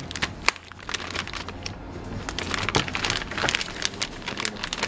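Metallized anti-static shielding bag crinkling as a graphics card is slid out of it: a run of irregular sharp crackles.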